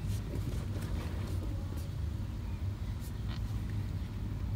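Air-conditioning condensing unit running with a steady low hum, with a few faint clicks of handling.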